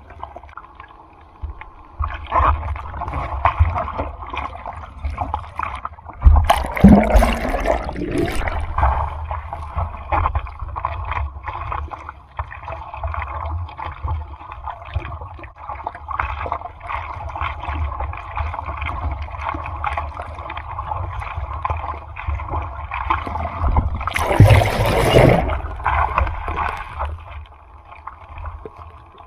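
Typhoon surf heard from the water: a steady wash of churning sea with a heavy low rumble, and twice a loud rush of breaking water and splashing, the first about seven seconds in and the second near twenty-five seconds.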